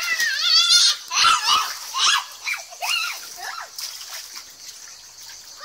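A young girl squealing and shrieking excitedly in a string of high calls, the first one wavering and rising, while water splashes in a small inflatable paddling pool.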